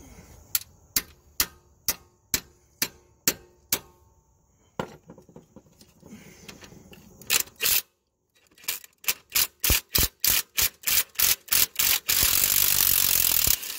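Hand tools working a broken exhaust manifold stud out of an engine. First comes a string of sharp metallic clicks about two a second, then faster clicking, ending in a loud steady rushing noise for the last couple of seconds.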